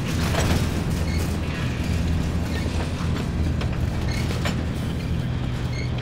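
Covered hopper cars of a freight train rolling past: a steady rumble of steel wheels on rail, with clicks as the wheels cross the rail joints and a few short high squeals.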